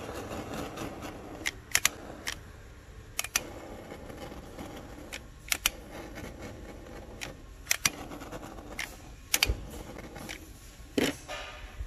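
Small handheld butane torch flame hissing steadily while it heat-shrinks tubing over soldered wire splices, with scattered sharp clicks and taps throughout.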